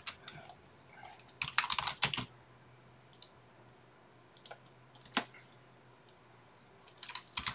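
Computer keyboard keystrokes and mouse clicks: a quick run of keys, then single clicks spaced a second or so apart, and another short run near the end.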